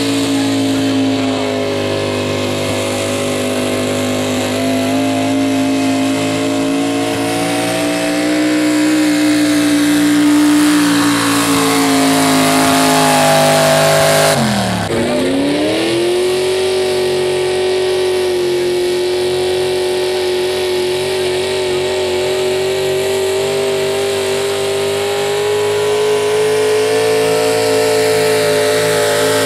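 Pulling pickup trucks' engines running at high, steady revs under full load while dragging a weight-transfer sled down the pulling track. About halfway through, the engine note drops sharply and climbs back up to a steady high pitch.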